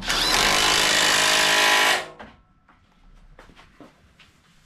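Ridgid cordless right-angle impact driver running for about two seconds while snugging up a bumper mounting bolt, then stopping abruptly. A few faint tool-handling clicks follow.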